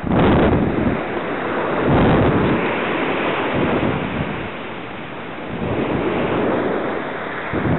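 Surf breaking on the shore, with wind buffeting the microphone, swelling and easing every couple of seconds.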